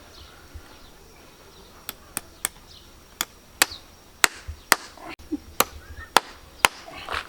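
About a dozen sharp hammer blows from the farrier, starting about two seconds in and coming in a quick, uneven rhythm.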